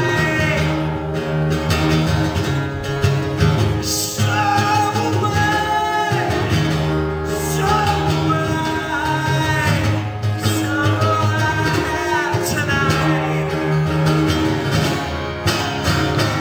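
A man singing with a strummed acoustic guitar, performed live.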